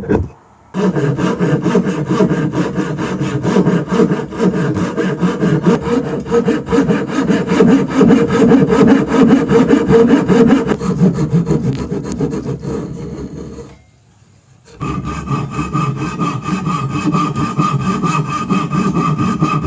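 A saw cutting through wood in quick, steady strokes. The sawing stops for about a second just before the end, then starts again.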